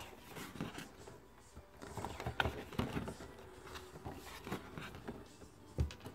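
Pages of a spiral-bound paper wall calendar being turned and handled: scattered soft paper rustles and taps, with a dull knock near the end.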